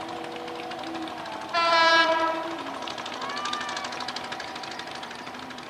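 Diesel locomotive sounds one horn blast about a second and a half in, loud at once and fading after about a second, over the steady drone of its engine as it approaches.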